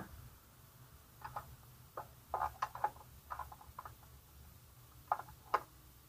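Irregular light clicks and ticks of a Honda CB300R's drive chain being moved by hand to check its slack, with two sharper clicks near the end.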